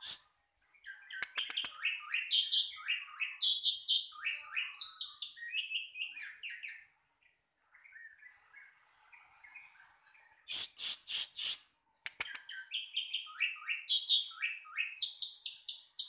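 A bird chirping and twittering in quick runs of short rising and falling notes. About ten seconds in, a short burst of loud, scratchy sounds breaks in before the chirping resumes.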